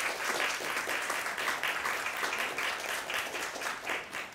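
Audience applauding at the end of a speaker's remarks, with dense clapping that starts to fade near the end.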